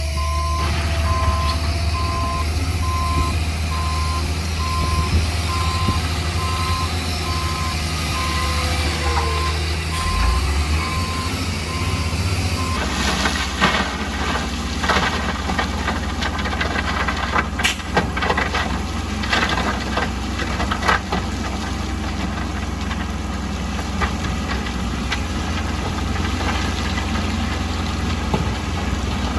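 Heavy diesel construction machine running with its reversing alarm beeping evenly over the engine drone. Partway through the beeping stops and the sound changes abruptly. From then on the engine runs on with irregular metallic clanks and knocks.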